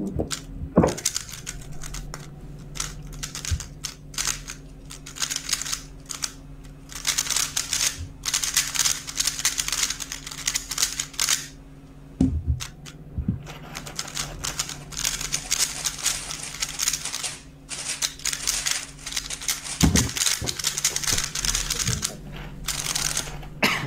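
3x3 speedcube being turned fast: long runs of rapid plastic clacking as the layers snap round, over a steady low hum.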